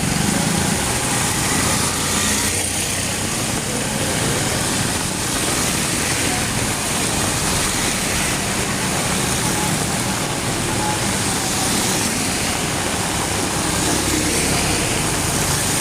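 Heavy rain falling in a steady hiss, with vehicle engines running in the street traffic underneath.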